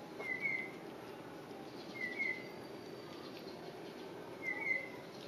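A bird's short two-note chirp, repeated three times about two seconds apart, over steady low background noise.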